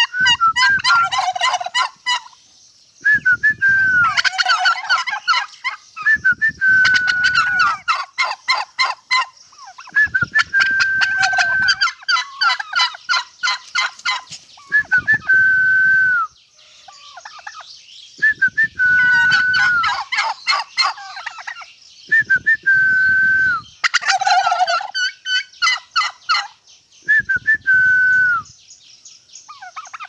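Domestic turkey tom gobbling again and again, a fast rattling call of one to two seconds repeated every few seconds, as the male struts in display with his tail fanned.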